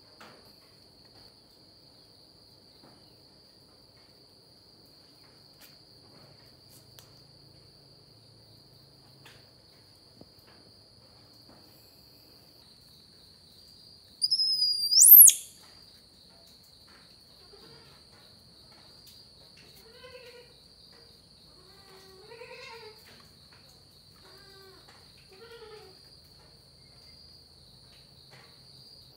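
Crickets trilling steadily at one high pitch. About halfway through, a single loud, high call rises steeply in pitch and stops. Later, a few faint short calls follow.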